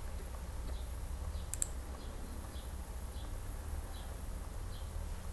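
Computer mouse clicked once, a sharp press-and-release about a second and a half in, over a low steady hum. Faint short high chirps recur about every half second to second.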